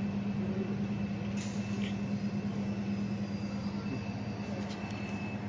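Steady low hum of a 1 kW laser cutting machine and its equipment running, with a couple of short hisses about a second and a half in and again near the end.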